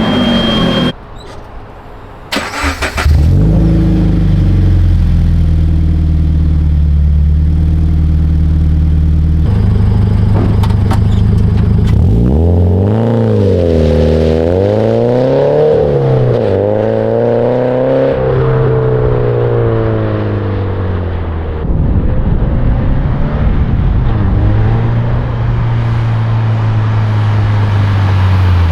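2013 Subaru BRZ's flat-four engine running through a GReddy Evo GT exhaust, steady at first, then revved up and down several times in the middle before settling back. The exhaust leak at the pipe joint has just been sealed with a 2.5 to 3 inch adapter and a donut gasket, and the note is clean, with no rattling.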